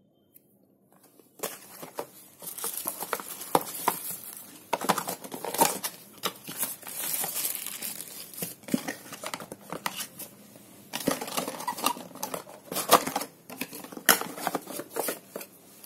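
Unboxing a phone: plastic wrapping crinkling and a cardboard box being opened and handled, an irregular rustle with sharp clicks and taps. It starts about a second and a half in and eases off briefly about two-thirds of the way through.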